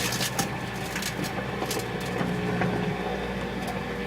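Microwave oven running with its steady hum, while an empty plastic chip bag inside crackles and ticks as it shrivels in the heat.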